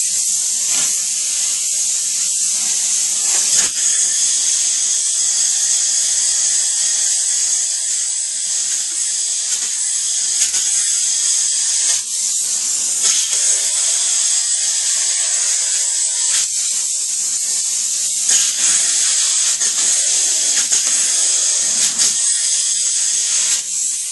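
Two-part spray foam gun hissing steadily as it sprays foam insulation, with a brief dip now and then.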